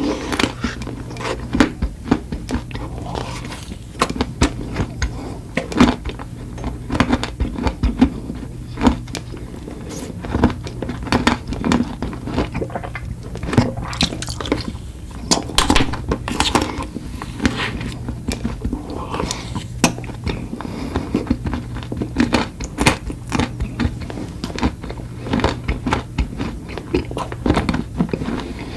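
Close-miked eating sounds: biting into and chewing desserts, with frequent sharp crunches and wet mouth clicks throughout.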